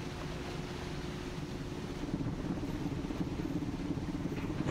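A car ferry's engine running under load while its propeller churns the water beside the pier. About halfway through it grows louder and rougher, with a throbbing low rumble.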